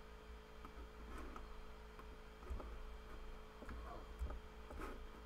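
Low steady electrical hum with a few faint, scattered computer mouse clicks.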